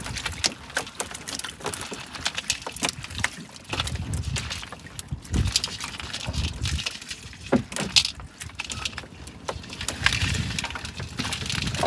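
Irregular clatter and knocks with a few dull low thumps, from fish and gear being handled in a small boat.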